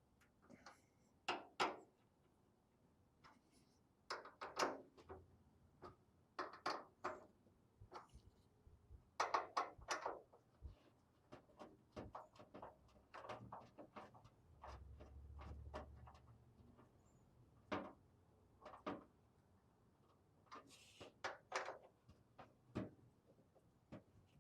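Scattered light clicks and knocks in short clusters, from screws being tightened by hand with a Phillips screwdriver into the panels and brackets of a steel storage cabinet.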